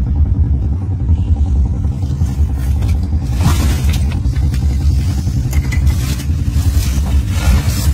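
Komodo dragon tearing at and dragging a goat carcass over rock and gravel: bursts of scraping and crunching about three and a half seconds in, around six seconds and again near the end, over a steady low rumble.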